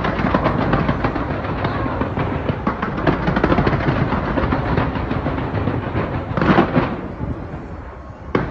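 Fireworks fired from the sides of a skyscraper going off in a rapid, unbroken barrage of bangs and crackles, with a louder flurry about six and a half seconds in and a brief lull just before the end.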